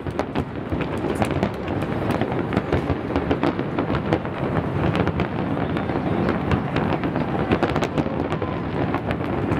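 Fireworks finale barrage: many aerial shells bursting in quick, overlapping succession. A continuous rumble of booms is studded with many sharp cracks.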